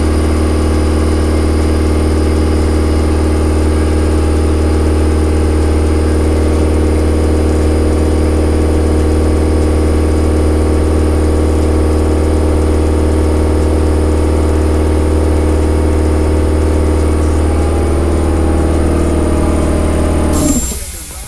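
Electric air compressor running steadily, its motor and pump filling an empty tank with a strong low hum. It stops abruptly near the end.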